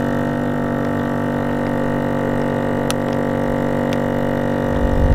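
A steady musical drone: several low held tones sounding together without change, like a synth or didgeridoo-style drone in background music.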